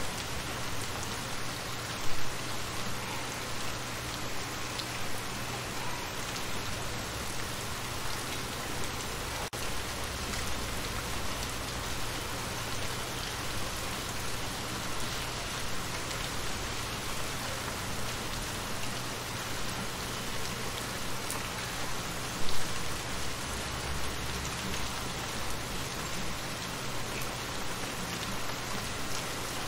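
Steady rain falling into shallow water, with a brief louder knock about two seconds in and another about twenty-two seconds in.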